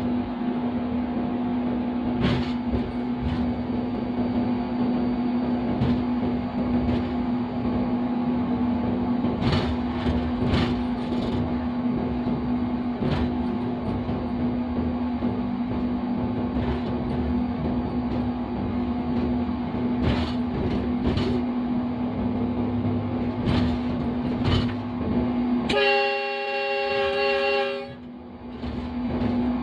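GEU-40 diesel-electric locomotive running steadily, heard from inside the cab, with a constant hum and sharp clicks now and then from the wheels over rail joints. Near the end the locomotive's horn sounds once for about two seconds.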